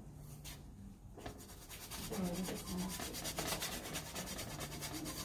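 Paintbrush scrubbing oil paint onto a canvas, starting about a second in and going on as quick, rhythmic back-and-forth strokes.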